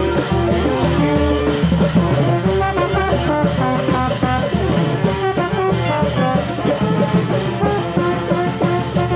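Band music with brass and drums playing a melody over a steady beat.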